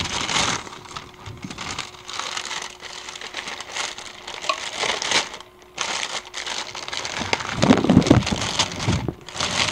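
Thin plastic carrier bag crinkling and rustling while a takeaway drink cup is worked out of it. There is a short lull about halfway through, and a louder burst of handling near the end.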